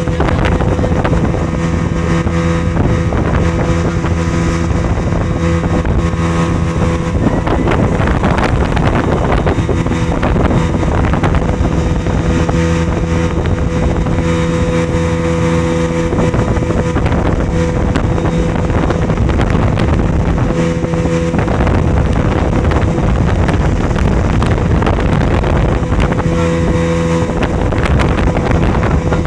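Motorboat-type engine running at a steady speed, with a constant drone. Through much of the middle it is partly drowned by rushing wind and water noise.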